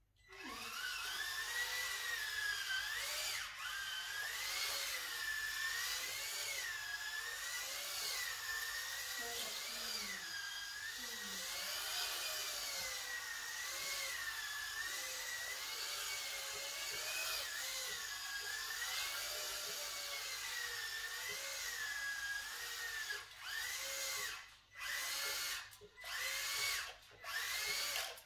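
Kyosho Mini-Z AWD 1:24 RC car's small electric motor and drivetrain whining, the pitch rising and falling constantly as the throttle is worked through drifts. Near the end the whine cuts out briefly several times as the throttle is let off.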